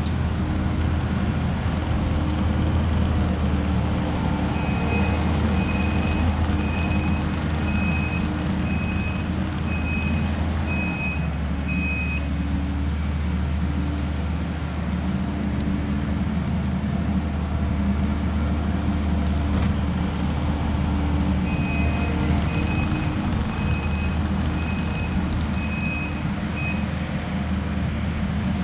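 Diesel engine of heavy equipment running steadily, with a backup alarm beeping a little more than once a second in two runs: one starting a few seconds in and lasting about seven seconds, another near the end.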